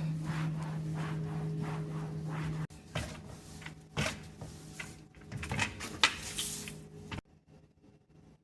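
Kitchen cleaning and handling noises: a steady low hum with faint regular scrubbing strokes, then, after an abrupt change, irregular knocks, clatters and scrapes that stop suddenly about seven seconds in.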